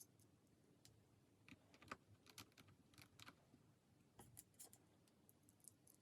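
Faint, irregular light clicks and taps of small hard plastic or metal parts being handled, in small clusters with short gaps.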